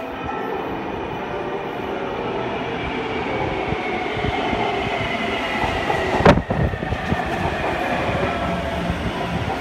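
Taipei Metro C321 electric train pulling into an underground station from the tunnel: a steady rumble of wheels and running gear that grows louder as it enters the platform, with a whine that slowly falls in pitch. A single sharp thump about six seconds in is the loudest sound.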